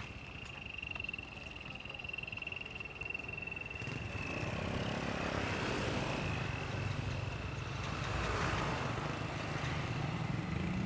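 Road traffic passing: cars and a motorcycle, with the diesel engine of an approaching Hino intercity bus growing louder from about four seconds in. A steady high tone sounds through the first four seconds, then fades.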